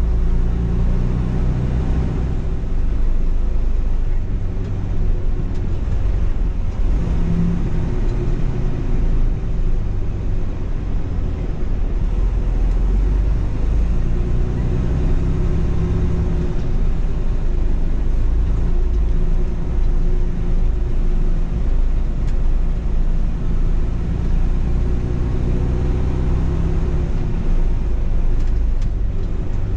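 Semi truck's diesel engine running at low revs as the truck rolls slowly: a steady low drone.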